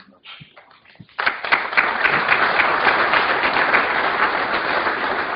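Audience applauding: a few scattered claps, then from about a second in the whole room joins in with steady applause.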